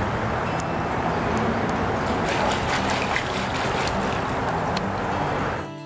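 Creek water running steadily, with a cluster of small clicks and splashes in the middle. It cuts off suddenly just before the end.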